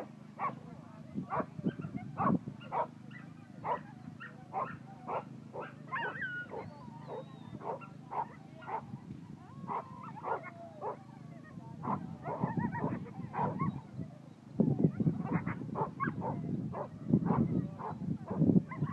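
A dog barking over and over, about two barks a second. In the later part the barks come faster and louder over a rougher rumbling noise.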